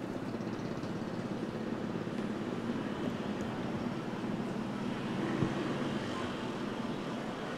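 Steady city street noise: a low rumble of vehicle traffic, with one short knock about five and a half seconds in.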